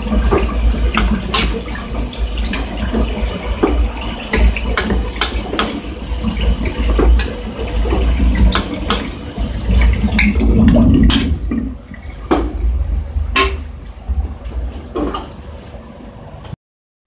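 Spaghetti, green beans and tuna tossed in a frying pan with a wooden spatula: repeated clattering scrapes and knocks against the pan over a steady hiss and low rumble from the hot pan on the gas burner. The hiss and rumble stop about ten seconds in, leaving a few scattered knocks.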